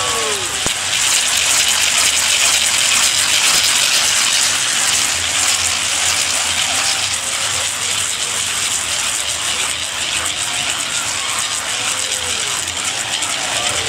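Many small round bells on carnival costumes jingling steadily as masked figures walk past. A few calls ring out at the start and near the end.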